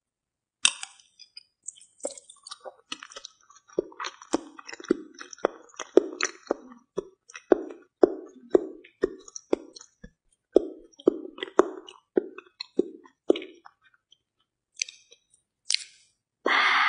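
Close-miked wet chewing of soft, slippery seafood, with mouth clicks, at about two chews a second. It thins out to a few clicks later on, and a short louder noisy sound comes near the end.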